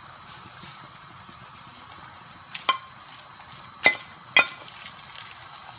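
Metal spoon clinking against a stainless-steel pot and a glass dish as fried aubergine strips are spooned into thick curry gravy. Four sharp, briefly ringing clinks come in the second half, the two loudest about half a second apart, over a faint steady hiss.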